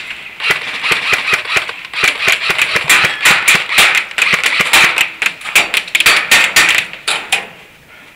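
Airsoft guns firing: a fast, irregular rattle of many sharp shots from about half a second in, stopping suddenly about seven and a half seconds in.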